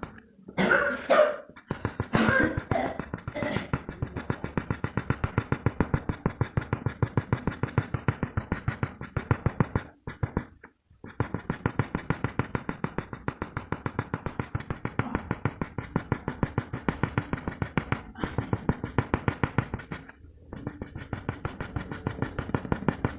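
Background music with a fast, steady beat, louder and brighter in the first few seconds and breaking off briefly twice.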